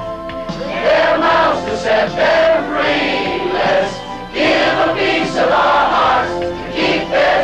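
Large choir of men and women singing together over a music accompaniment, in phrases with brief breaths between them.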